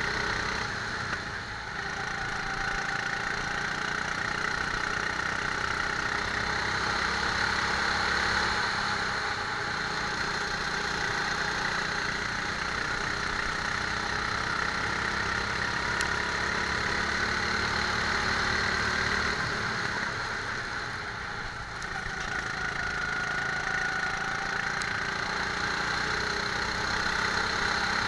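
Rental go-kart engine running steadily under throttle on a lap, its note easing off briefly twice, about a second and a half in and again about twenty-one seconds in, then picking back up.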